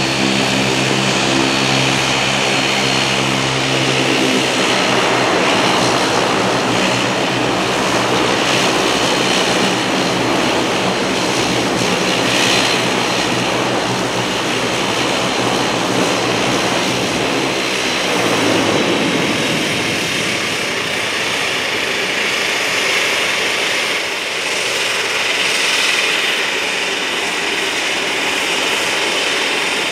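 Bombardier Q400's Pratt & Whitney PW150A turboprop engines running at taxi power: a propeller drone with a steady high-pitched turbine whine. The low droning tones fade a little past halfway through, leaving a broader rumble.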